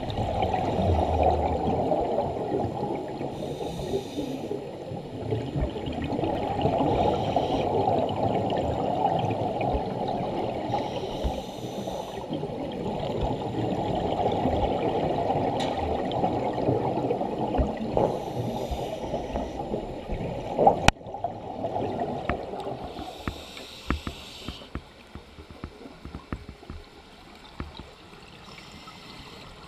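Underwater scuba sounds: a diver's regulator hissing on each inhale every four to five seconds over a steady bubbling and rushing of water, which eases off after about twenty seconds. There is one sharp click just before that.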